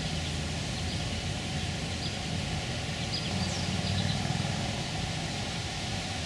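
Steady outdoor background noise: a low rumble under a hiss, a little louder around the middle, with a few faint, short, high chirps.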